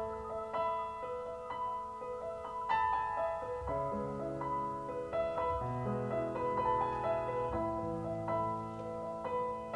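Keyboard playing a slow instrumental introduction: a melody of long held notes, with low sustained chords coming in about four seconds in.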